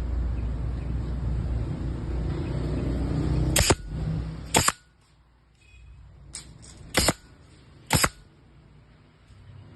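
A steady low rumbling noise that cuts off about five seconds in, with sharp knocks or clicks: two near the cutoff and three more over the next few seconds.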